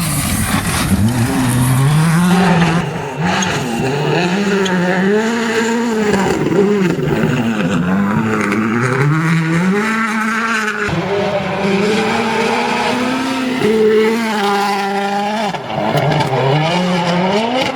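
Rally car engine revving hard, its pitch climbing and dropping again and again as it accelerates, shifts and slows.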